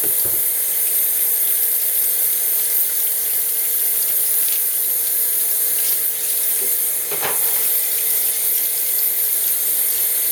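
Cold water running steadily from a kitchen faucet into the sink while an onion is peeled under the stream, with a light knock about seven seconds in.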